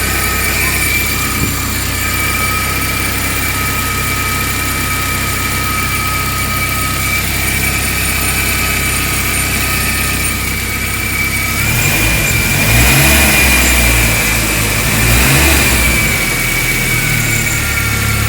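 Volkswagen AP 1.6 four-cylinder engine running with a steady high-pitched whine from the front of the engine, which the owner suspects comes from the timing belt tensioner. In the second half the engine speeds up twice, and the whine goes on over it.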